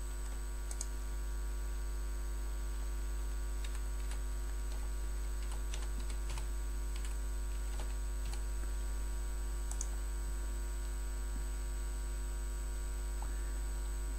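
Steady low electrical mains hum, with scattered computer keyboard keystrokes and clicks in small irregular groups as a password is typed.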